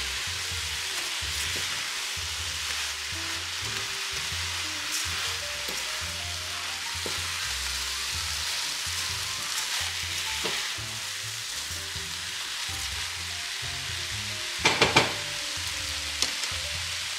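Raw rice being stirred with a plastic spatula through sizzling sofrito and tomatoes in a nonstick pan: a steady frying sizzle with the scrape of stirring. Three quick sharp knocks come near the end, then a lighter one.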